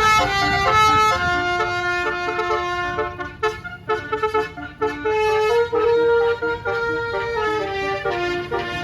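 Bus telolet horn, the multi-trumpet musical air horn of an Indonesian tour bus, playing a tune: a quick run of short notes in the middle, then longer held notes. A low engine rumble sits underneath at the start and again near the end.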